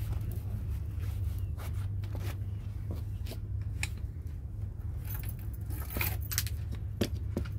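Wind rumbling on the microphone, a steady low rumble, with scattered light clicks and clinks on top.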